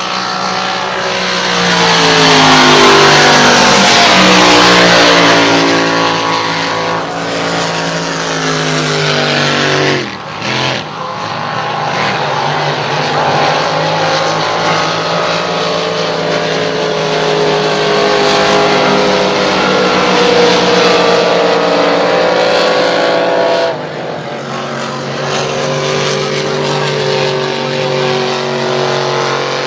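Race car engine running hard, its pitch rising and falling as it revs through the gears and corners. The engine is briefly cut back about ten seconds in, and again near the end.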